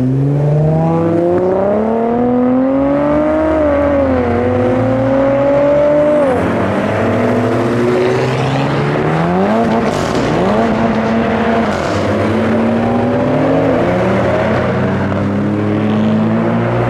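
Modified car engines revving as the cars pull away: one engine climbs steadily in pitch for about six seconds, then drops off sharply, after which several engines rise and fall over one another.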